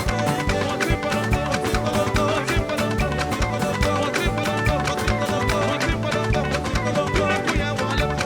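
Live gospel band playing an instrumental passage with a steady drum beat.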